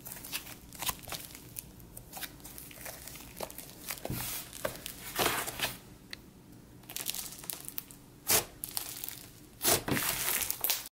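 Thick puff slime being stretched, folded and pressed by hand: sticky crackling with many small air-bubble pops, and a few louder pops in the second half, the loudest near the end.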